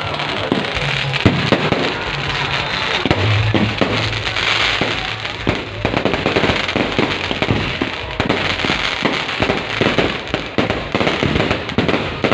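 Fireworks going off in a fast, dense string of bangs and crackles that grows thicker in the second half, with music playing underneath.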